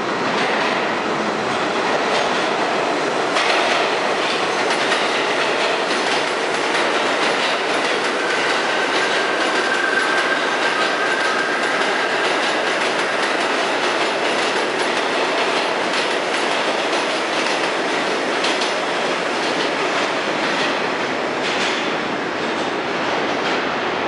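R32 subway train running through an underground station, a steady rumble with wheels clacking over rail joints. A faint high whine sits in the middle for a few seconds.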